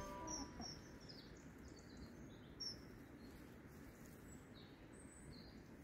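Faint, scattered high chirps of small wild birds over quiet outdoor background noise.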